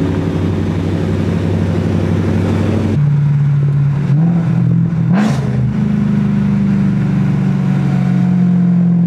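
Car engine and road noise heard from inside a moving car: a steady low drone that changes about three seconds in and rises in pitch twice as the car speeds up.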